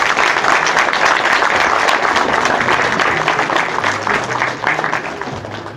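Audience applauding: many hands clapping together, fading away near the end.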